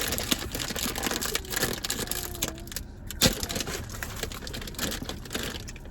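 Tough plastic chip bag crinkling and crackling as it is wrenched and torn open, a dense run of crackles with one sharp snap about three seconds in, then lighter rustling.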